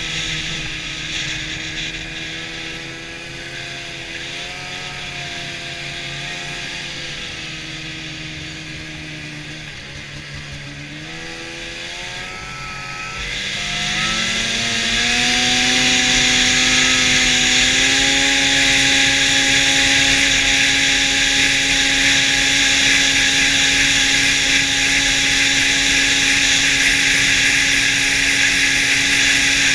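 2014 Arctic Cat El Tigre 6000 snowmobile's two-stroke engine under way, heard from the sled. It varies at part throttle and dips about ten seconds in, then revs up steeply and holds a steady high pitch flat out for the last dozen seconds, with a loud steady hiss over it.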